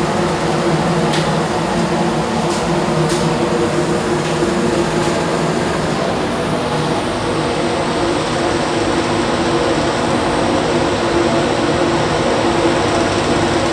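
Steady drone of a passenger ship's engines, a low hum with a constant rushing noise over it.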